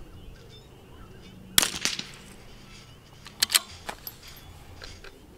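Two .22 LR rimfire rifle shots from CZ 457 bolt-action rifles, about two seconds apart, the first the loudest. Each shot is followed within a fraction of a second by a quieter sharp crack.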